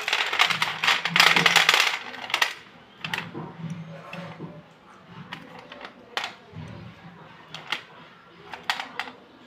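Anil brand slate pencils clattering against each other and a steel plate as a handful is shuffled and let fall, a dense rattle for about two seconds. After that come single sharp clicks every second or so as pencils are picked out one by one and laid in the palm.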